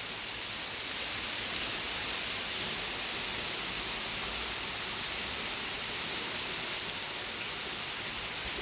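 Heavy rain, a steady downpour falling evenly without a break.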